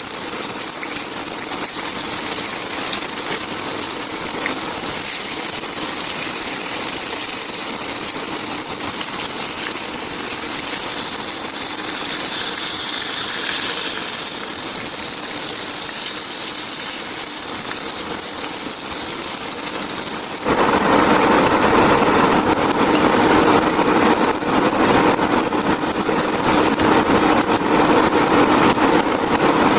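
Milkfish frying in hot oil, a steady loud sizzle. About twenty seconds in it abruptly turns fuller and rougher.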